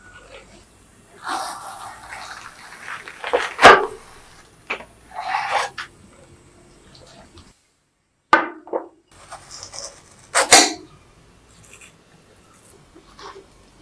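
Wet, crunchy cutting sounds of a cream-frosted watermelon being sliced and a piece lifted out, with a few sharp crunches of the juicy flesh; near the end a fork breaks into the watermelon.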